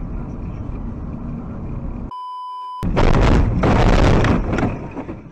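Road and engine noise inside a moving car. About two seconds in there is a short electronic beep. It is followed by a loud crash of about two seconds as the car hits and runs along a metal roadside fence.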